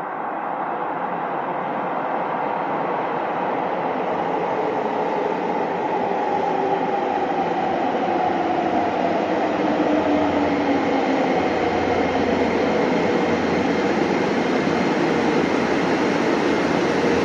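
Subway train running on the rails, growing steadily louder. Its motor whine slides down in pitch as it slows.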